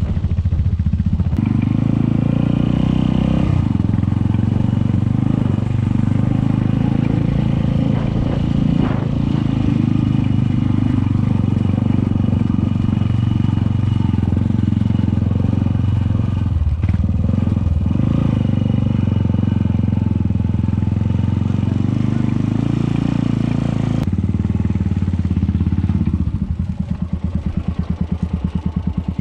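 Suzuki Thunder 250 motorcycle engine running under way, its pitch stepping up and down with throttle and gear changes. Near the end it drops to an even, pulsing idle as the bike comes to a stop.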